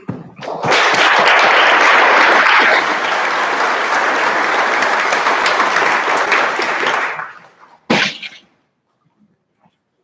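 Audience clapping loudly, starting about half a second in and dying away after about seven seconds for a student whose name has just been read. It is followed by one sharp knock or single clap.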